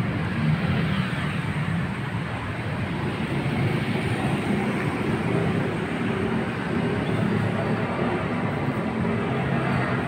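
Steady rumble of road traffic, motorbikes and cars passing on a busy street.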